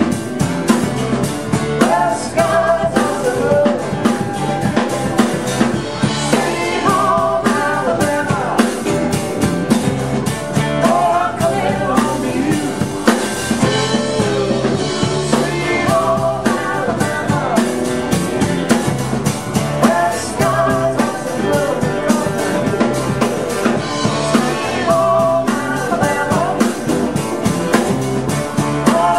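Live rock band playing: acoustic and electric guitars, bass guitar and drums with a steady beat, and singing.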